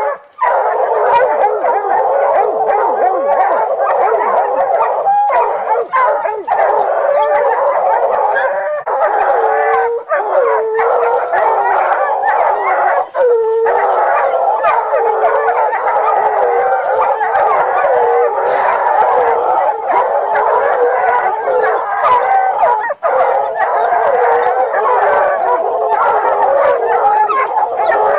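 Hunting hounds baying and howling without pause at a mountain lion held at bay, several voices overlapping.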